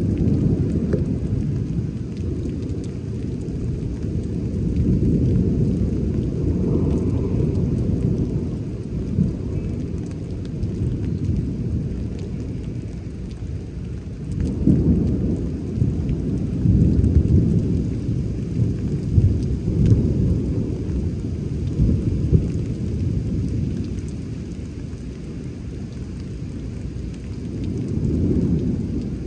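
Thunder rolling in long, low rumbles that swell and fade, strongest from about fifteen to twenty-two seconds in, over steady rain.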